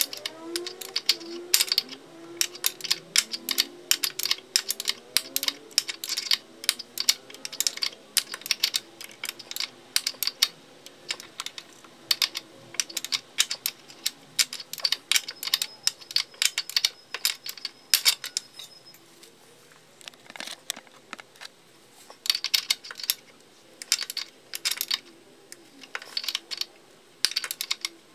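Ratchet wrench clicking rapidly and unevenly in short runs as a suspension fastener is worked. The clicking stops for a few seconds about twenty seconds in, then starts again.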